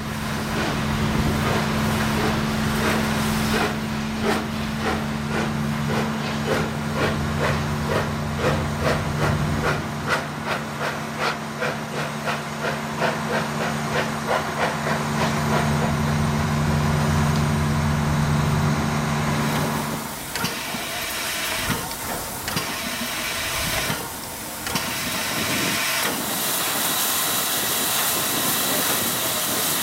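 Steam locomotive working, its exhaust beating out rhythmic chuffs about two to three a second over a steady low hum. About two-thirds of the way in the chuffing stops and a loud, steady hiss of escaping steam takes over, broken briefly twice.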